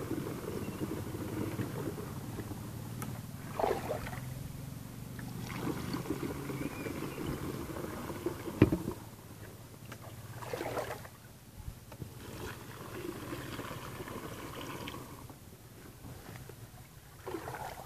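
Water poured from a plastic bucket into the tank of a plastic backpack sprayer, a steady rush for about the first nine seconds. It ends with a sharp knock, after which the sound is quieter with a few short knocks of handling.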